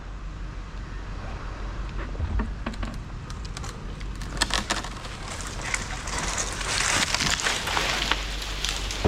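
Truck engine running steadily with a low hum. Crackling and rustling noise grows louder in the second half, with scattered sharp cracks.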